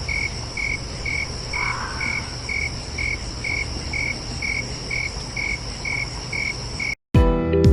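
Night insect chorus: a cricket chirps steadily about twice a second over a constant high insect trill and a low background rumble. It cuts off abruptly about seven seconds in, and plucked guitar music begins.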